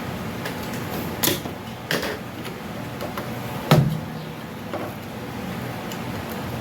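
A few light knocks and clicks from handling tools and parts at a workbench, about four in all, the loudest near the middle, over a steady background hiss.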